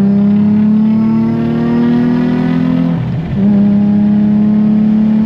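Nissan 350Z's 3.5-litre V6 engine and loud exhaust pulling under acceleration, the pitch climbing steadily through a gear. About three seconds in, the note drops briefly at an upshift, then climbs again in the next gear.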